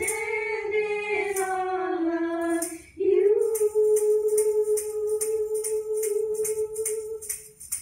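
A single voice singing two long held notes, the first sliding slowly downward, the second held steady for about four seconds, with a tambourine jingling in a steady beat underneath.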